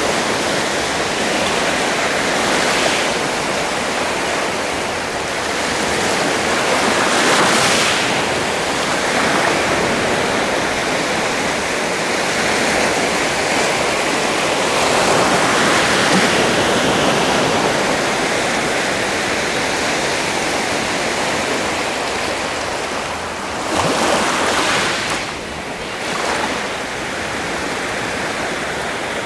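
Sea waves washing onto the shore as continuous surf noise, swelling as each wave breaks every few seconds, with a stronger break about three-quarters of the way in.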